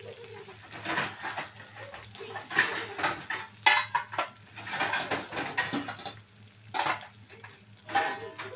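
Metal utensils clinking and scraping against a metal cooking pan in irregular bursts, over the faint sizzle of sliced onions and green chillies frying in oil.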